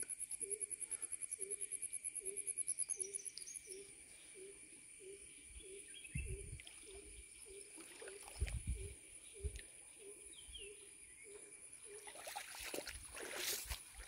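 Faint rural ambience beside a waterlogged meadow. An animal call, a low note repeated about twice a second, runs through most of it. Above it, a high, fast-pulsing insect trill stops about three and a half seconds in. A few soft thumps follow, then rustling footsteps through grass near the end.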